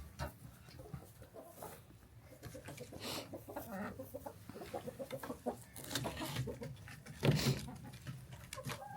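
Chickens clucking, fairly faint, with one louder sound about seven seconds in.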